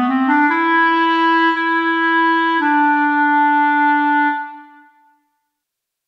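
Sampled solo clarinet from the reFX Nexus 4 'Clarinet Bb Solo' preset playing a short phrase: a quick rising run of notes, one long held note, then a slightly lower held note that fades out about five seconds in.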